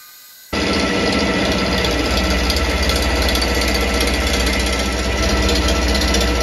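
Vertical milling machine's end mill face-milling the horns of a locomotive frame plate: the machine's steady hum under the dense, rapid chatter of the cutter in the metal, coming in suddenly about half a second in.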